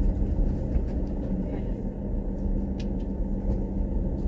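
Vehicle travelling along a road: a steady low engine hum and road rumble that holds even throughout.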